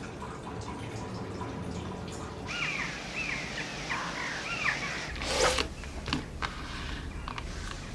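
Quiet room tone, then birds calling: a run of short chirps over a light outdoor hiss, and a single louder harsh call a little after the middle.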